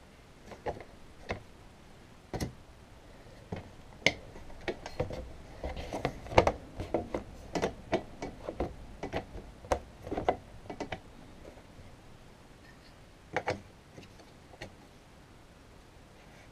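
Irregular clicks and knocks from handling a mat cutter: card shifted under its aluminium rail and the sliding cutting head gripped and set. They come a few at a time at first, run thick through the middle, then a last close pair near the end.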